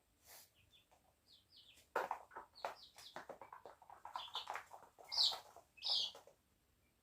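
Chicks cheeping in short high peeps over a busy flurry of quick clicks and rustles starting about two seconds in, with two louder cheeps near the end.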